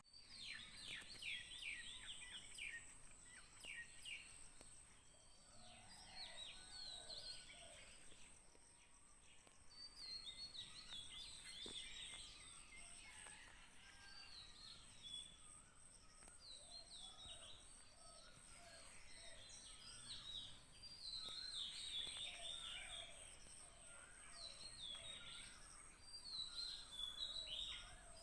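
Morning chorus of several birds: many quick repeated chirps and twitters, with some lower warbling calls in between, heard faintly over a steady thin high tone.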